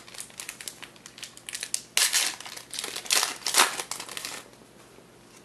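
Cardboard trading cards being handled, flipped and slid against one another: a quick run of papery rustles and snaps that stops about four and a half seconds in.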